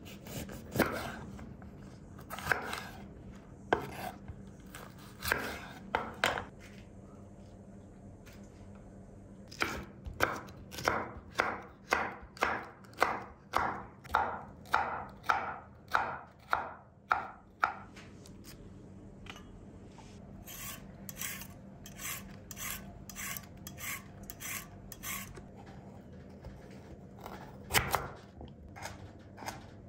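Chef's knife slicing green bell peppers on a wooden cutting board, each stroke ending in a knock on the wood. A few separate cuts open it, then a steady run of about two strokes a second, then a quieter run of strokes.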